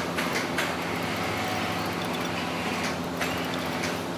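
Steady low mechanical hum of machinery running, with a few light clicks.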